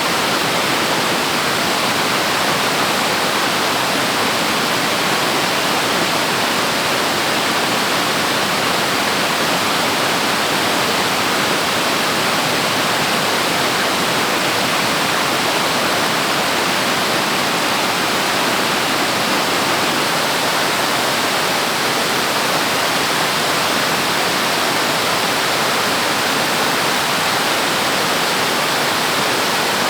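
Waterfall rushing, a loud steady roar of falling water without a break.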